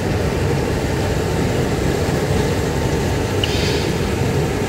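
Fresh-cut potato fries bubbling in hot oil in a stainless countertop deep fryer basket, a steady noise, with one brief higher sound about three and a half seconds in.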